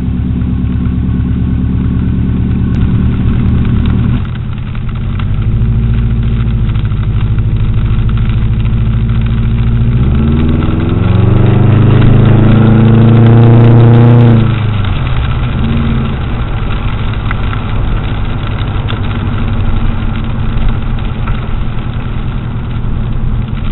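Subaru Forester 2.5 XT's turbocharged flat-four engine, heard from inside the cabin. It runs steadily at first, its note dipping about four seconds in, then rises in pitch as the car accelerates through the automatic gearbox, loudest about twelve to fourteen seconds in before dropping off suddenly. It then settles into a steady running note.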